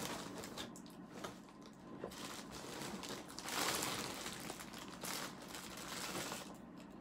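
Plastic shipping bag and the wrapping inside it crinkling and rustling as clothes are rummaged through and pulled out, loudest a little past the middle and dying down near the end.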